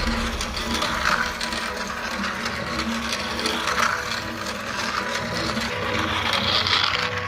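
Small electric motor of a toy train whirring steadily.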